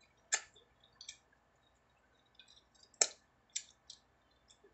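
Wet mouth smacks and clicks of a person eating with her fingers close to the microphone: two sharp ones, about a third of a second in and at about three seconds, with a few fainter ones between and after.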